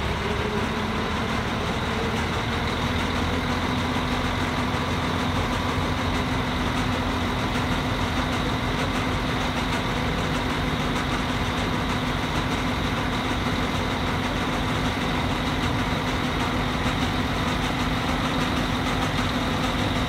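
A vehicle ferry's engine idling with a steady, unchanging drone and hum.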